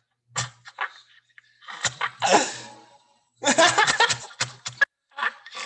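Laughter and voices in short bursts.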